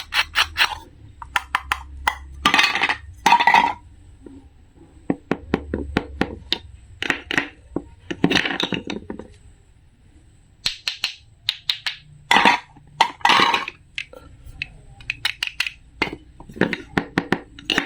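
Small hard objects being handled: a quick, irregular series of clicks, clinks and knocks, with short scraping or rustling passages between them.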